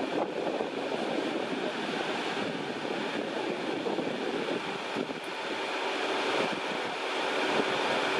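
Jet aircraft engines heard as a steady rushing noise with a faint steady whine, slowly growing louder.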